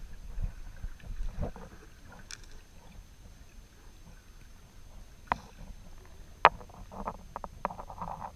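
A kayak on a river: water splashing around the paddles and hull over a low rumble, with a few sharp knocks, the loudest about six and a half seconds in, and rougher splashing near the end.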